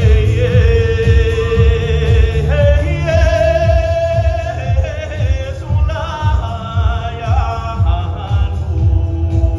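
Music with a singer holding long, wavering notes, the pitch stepping up a few seconds in, over a pulsing bass beat.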